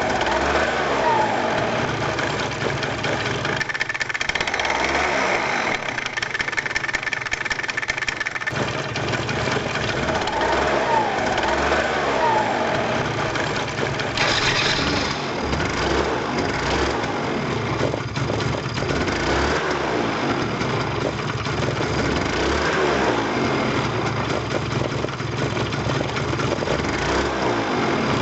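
Yamaha Grand Axis 100 scooter's single-cylinder two-stroke engine idling, with its pitch rising and falling as the throttle is blipped several times in the first half.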